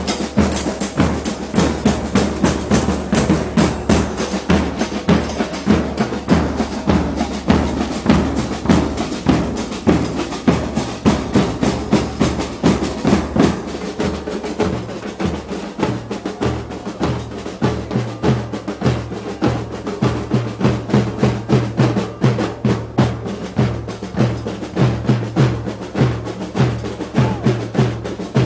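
Football supporters' marching drum band playing: large bass drums and snare drums beaten together in a steady, fast rhythm, with a cymbal fixed on top of a bass drum struck along with the beat.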